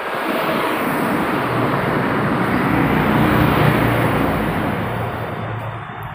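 A motorcycle passing close by on the road, its engine growing louder to a peak about four seconds in and then fading away, over steady traffic noise.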